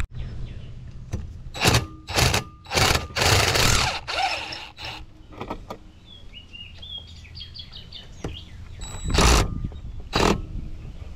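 Short bursts from a cordless drill working at stripped screws on a pool pump motor, each lasting well under a second. A bird chirps rapidly about halfway through.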